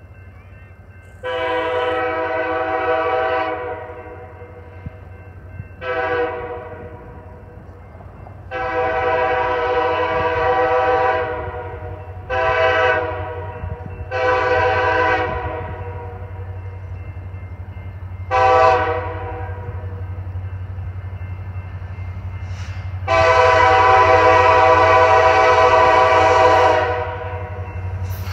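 An EMD SD70ACe diesel locomotive's multi-chime air horn sounds seven blasts of mixed length: long, short, long, short, medium, short, and a final long blast. A steady low rumble underneath grows louder as the train approaches.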